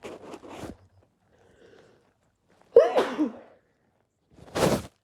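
A person sneezing into a handkerchief, set off by chhinkni, a sneeze-inducing herbal snuff. Quick breathy sniffs come in the first second, then one loud sneeze with a falling voice about three seconds in, then a shorter breathy burst near the end.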